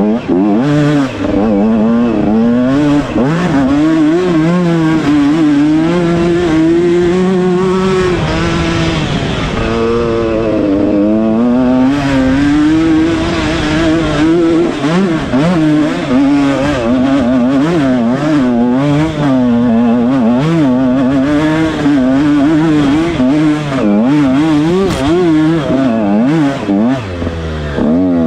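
Dirt bike engine revving up and down without pause. Its pitch rises and falls every second or so as the throttle is worked on a rough off-road trail.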